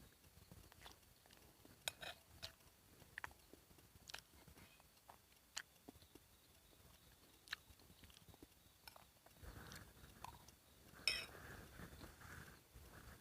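A person eating instant noodles: faint chewing with scattered light clicks of a utensil against the bowl or pot, one louder click about eleven seconds in.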